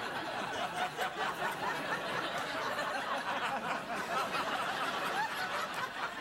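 Studio audience laughing, many voices at once.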